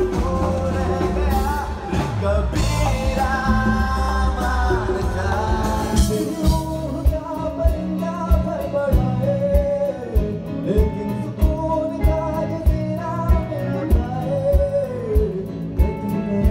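Live band music: a man singing with electric guitar, keyboard and drums. About six seconds in the sound thins to a steady kick-drum beat, about two hits a second, under a wavering melody line.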